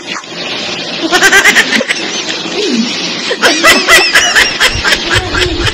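A woman laughing in two bursts of quick, breathy pulses, about a second in and again from about three and a half seconds.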